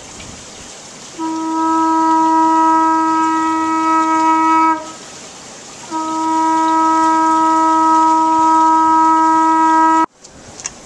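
Conch shell blown as a horn: two long, steady blasts of the same pitch, each about four seconds, with a short gap between. The second blast cuts off suddenly.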